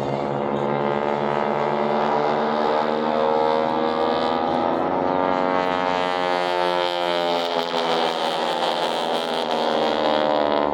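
Radial engines and propellers of T-6 Texan aircraft droning, the pitch slowly drifting up and down as the planes manoeuvre.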